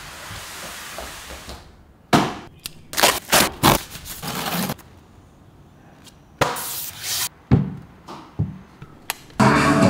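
Unboxing noises from a soundbar's packaging: a string of short scrapes and rustles of cardboard, styrofoam end caps and plastic wrap, with a few sharp knocks. Music starts near the end.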